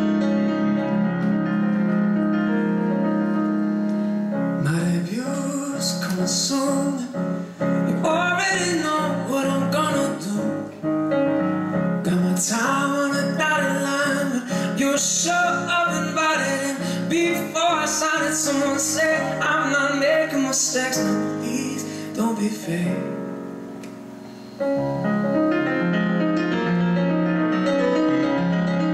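A live song: a male singer sings over chords on a Yamaha CP stage piano. The piano plays alone at first, the voice comes in about five seconds in and drops out a few seconds before the end, when the piano goes briefly quieter and then carries on alone.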